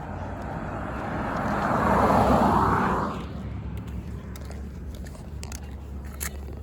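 A vehicle passing on the road: tyre and engine noise builds to a peak about two seconds in and fades quickly by three seconds. No horn sounds.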